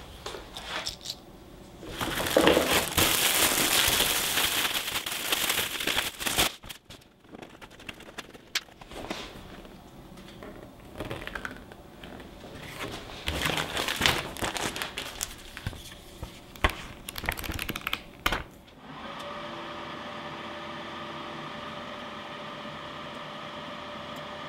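Packaging being handled: plastic wrapping crinkling and rustling, with knocks and clicks, loudest in the first several seconds. Near the end a steady mechanical hum starts and holds.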